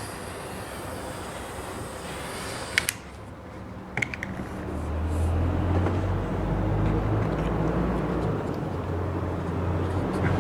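Steady hiss of a small handheld torch heating heat-shrink tubing, ending with a click about three seconds in and a second click a second later. Then a low, steady engine-like drone comes in and builds.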